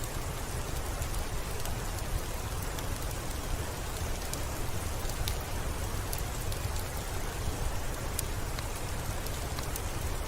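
Steady rain falling over a low rumble, with scattered sharp ticks here and there.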